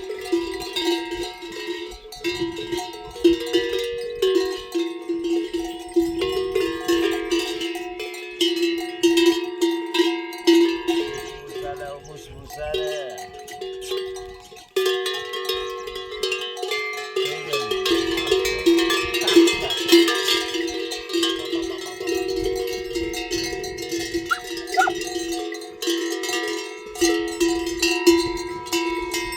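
Many livestock bells on a herd of goats and sheep clanking and ringing all together, as the animals move.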